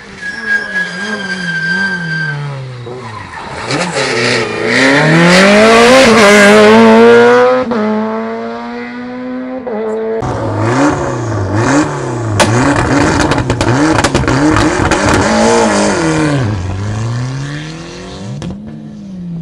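Rally car engines at full throttle on a tarmac stage: one climbs through the gears as the car passes, loudest around the middle. Then, abruptly about ten seconds in, an engine's revs rise and fall quickly between gear changes, with several sharp cracks.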